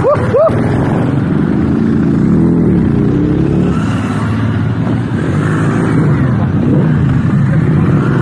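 Several motorcycles pulling away and riding past one after another, engines running with rises in pitch as they rev. At the very start a dog barks three times in quick succession.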